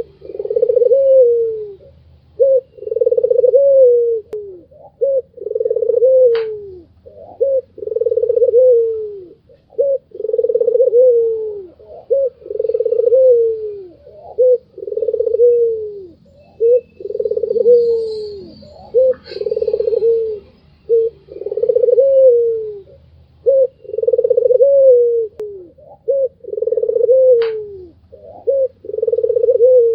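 White (albino) Barbary dove (puter putih) cooing over and over: a low, mellow coo ending in a falling glide, with short notes between, repeating about every two seconds.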